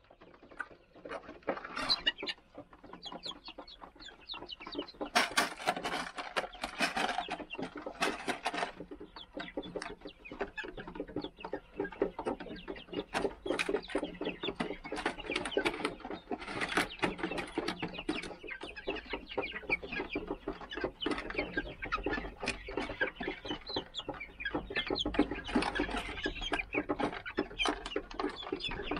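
Young Golden Laced Polish chickens, about 45 days old, calling continuously: a busy stream of short chirps and clucks, with several louder bursts of calls.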